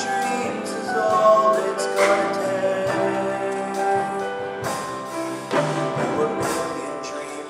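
A middle school chorus performing a song with instrumental accompaniment, held notes over a struck accompaniment.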